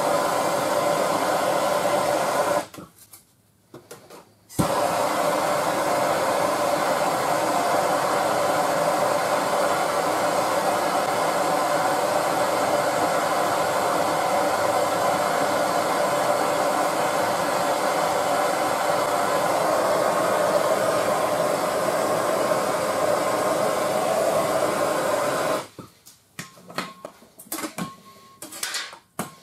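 Bernzomatic TS8000 hand torch flame burning steadily as it heats the frame rail. It cuts out briefly about three seconds in and comes back, then shuts off a few seconds before the end, followed by a few light knocks.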